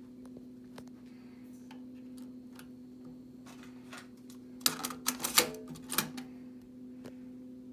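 Toshiba PC-G6R cassette deck's door being handled: light clicks, then a quick cluster of loud plastic clicks and clacks about five to six seconds in as a cassette goes into the holder and the door is snapped shut. A steady low hum runs underneath.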